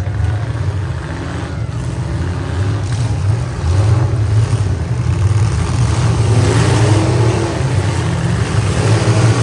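Several demolition derby pickup trucks' engines revving hard as the heat starts. The sound grows louder about three and a half seconds in, with rising revs near the end.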